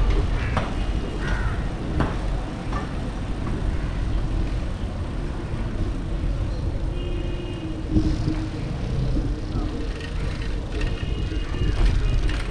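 Bicycle riding on a wet road: a steady low rumble of tyres and wind on the microphone, with street traffic around. Short high-pitched beeps sound about seven seconds in and again near the end.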